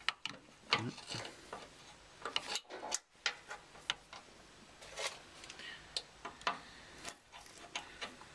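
Ratchet spanner clicking in short, irregular runs of ticks as it winds off a freshly loosened nut on the air suspension compressor's mounting bracket.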